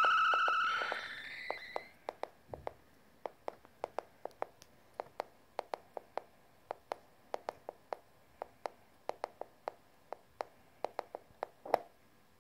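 littleBits modular synth: a held electronic tone fades out with a short upward glide, then a loose string of short sharp clicks follows, about two to three a second, with one louder click near the end.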